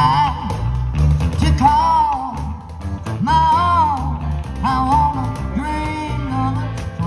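Live band playing a country-flavoured rock-and-roll song: electric bass and guitars under a lead melody line whose notes bend and waver.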